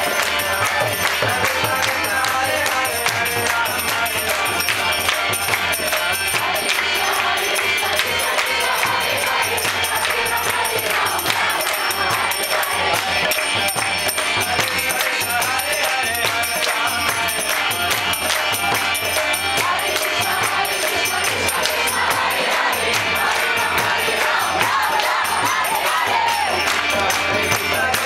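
Kirtan: a group singing and chanting to a hand-pumped harmonium and a mridanga drum, over a steady metallic jingle of hand percussion.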